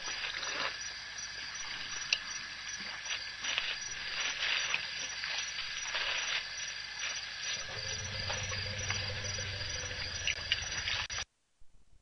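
Night-time waterhole ambience: steady insect chirring with a finely pulsed high note, scattered small clicks and rustles, and a low hum for about two seconds near the end. The sound cuts out suddenly just before the end.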